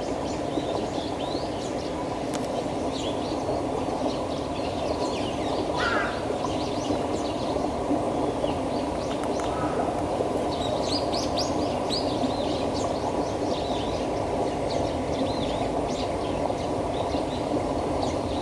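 Outdoor ambience: small birds chirping over a steady low background din, with a crow cawing about six seconds in and once more, fainter, near ten seconds.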